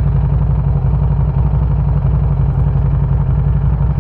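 2019 Harley-Davidson Street 500's V-twin engine idling steadily, just after a start-up.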